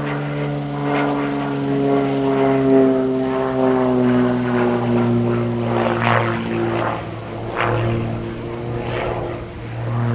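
Aviat Pitts S-2C aerobatic biplane's propeller and engine droning in flight, the pitch sliding slowly lower as the loudness swells and fades a few times.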